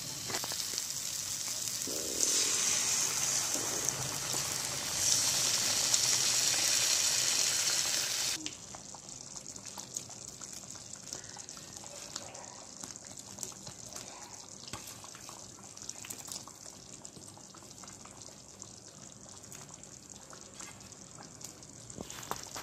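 Water poured into a pan of hot, fried-down masala paste, hissing and sizzling loudly, stops abruptly about eight seconds in. A quieter curry gravy simmering in the pan follows, with small scattered pops.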